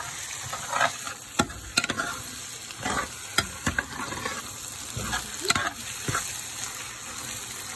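Scrambled eggs with chopped green onion sizzling in oil in a metal pan while a metal spoon stirs them, scraping and clicking against the pan a dozen or so times over a steady sizzle.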